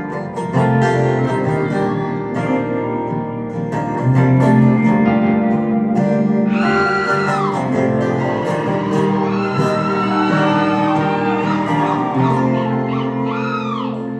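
Live acoustic and electric guitar music, amplified through a concert PA and heard from among the audience. A high melody with bending notes comes in about halfway through.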